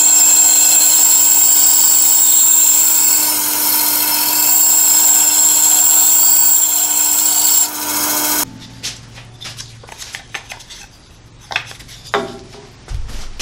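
Bandsaw running and cutting through a 2x4 block, a loud steady sound with a high whine. It cuts off abruptly about eight and a half seconds in, leaving light knocks and scrapes of the wooden block being handled on the saw's metal table.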